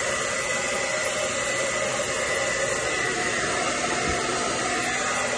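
Handheld hair dryer running steadily: a loud, even rush of air with a thin high whine.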